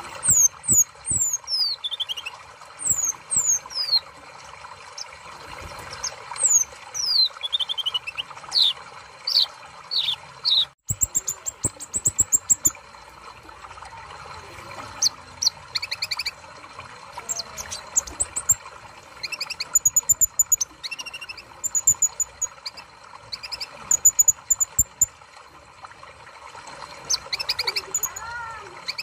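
Kolibri ninja (purple-throated sunbird) singing: a long run of thin, high chirps and quick falling whistles. The sound cuts out for an instant about a third of the way through.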